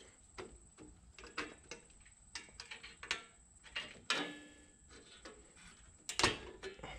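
Small metal clicks and scrapes of a rear drum brake's self-adjuster spring and hardware being worked back into place by hand, with louder clicks about four and six seconds in.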